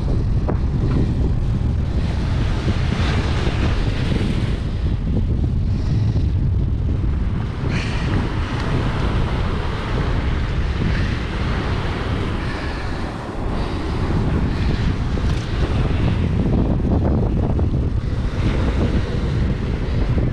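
Wind buffeting the microphone in a steady low rumble, with the wash of surf breaking on the shore beneath it.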